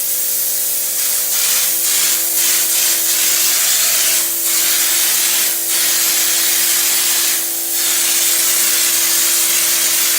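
Air-powered popcorn-texture hopper gun spraying ceiling texture through its middle-size orifice: a steady hiss of air and spray, with a steady low hum underneath. The spray breaks briefly three times.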